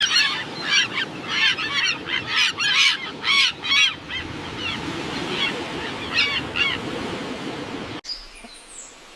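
Birds calling over and over with harsh, honking calls, many in quick succession at first and thinning out after about four seconds. The calls cut off abruptly about eight seconds in, and a short sharp sound comes at the very end.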